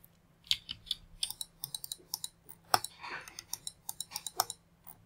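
A rapid, irregular series of clicks from a computer keyboard and mouse, stopping shortly before the end.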